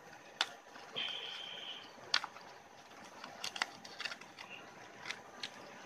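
Dry banana leaf roll being peeled open by hand: scattered sharp crackles and rustles of the brittle leaf.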